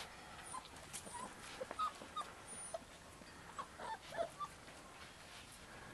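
Bearded Collie puppies giving a scatter of short, high whimpers and squeaks as they play, bunched around two and four seconds in.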